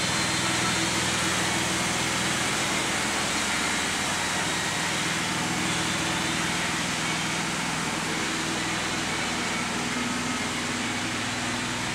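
Machinery running steadily: an even hiss with a low hum under it, and no breaks.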